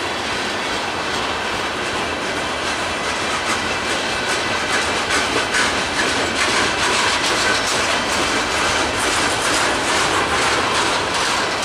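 Freight cars of a passing train (open-top gondolas) rolling by: a steady rumble of steel wheels on rail, with a run of clicks and clatter as the wheels pass, sharper from a few seconds in.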